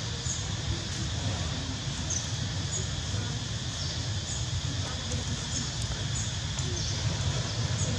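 Outdoor ambience: a steady low rumble with short, high chirps scattered irregularly, about one a second.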